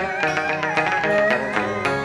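Chầu văn (hát văn) ritual music playing an instrumental interlude with no singing. A plucked lute carries a gliding melody over a regular beat of sharp wooden clicks.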